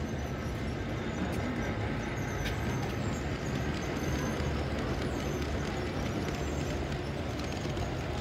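Model passenger train running along the track as it passes close by: a steady rumble of its wheels and motor.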